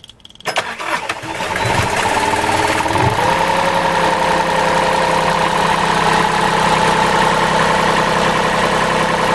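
Westerbeke marine diesel generator starting: it cranks and catches about half a second in, speeds up over the next few seconds, then settles into a steady run. The generator has a dirty fuel filter starving it of fuel.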